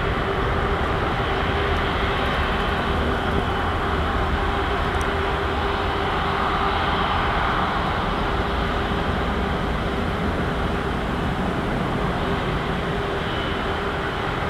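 Airbus A330's Rolls-Royce Trent 700 jet engines running, a steady loud noise with a constant hum in it and a slight swell partway through.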